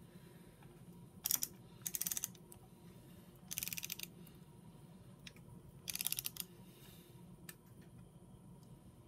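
Ratchet of a torque wrench clicking in four short bursts of rapid clicks, each about half a second, as it is swung back and forth tightening cylinder head bolts on the first torque pass of 22 lb-ft.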